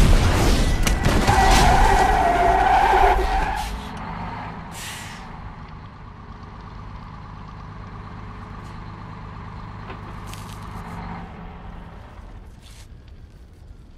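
A film explosion: a loud blast rumble with crashing debris for the first three and a half seconds, then a steady low vehicle engine hum that fades out near the end.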